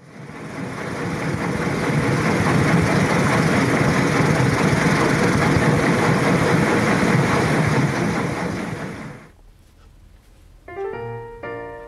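A loud, steady rushing noise fades in, holds, and fades out about nine seconds in. Near the end, piano music begins.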